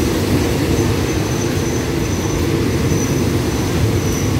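Diesel-hauled passenger train at the platform: a steady, loud low rumble from its engine, with a faint high-pitched tone coming and going over it several times.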